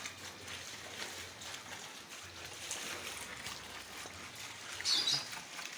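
Water trickling and sloshing steadily, with a short louder burst about five seconds in.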